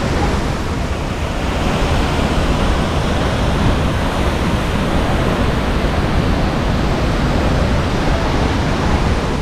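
Steady rushing roar of Athirappilly Falls, a large waterfall, with a low rumble of wind on the microphone.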